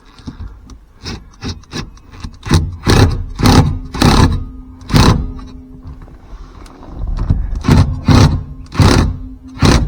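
A rapid, irregular series of sharp knocks and clunks, about two or three a second, from work on a shifter being fastened to a car's floor tunnel.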